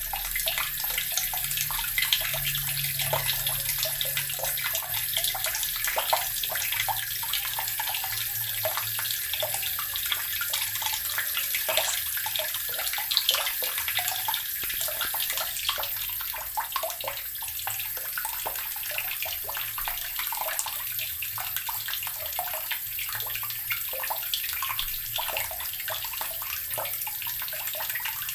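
Water running steadily from a tap and splashing: a continuous hiss with many small, quick splashes and no pauses.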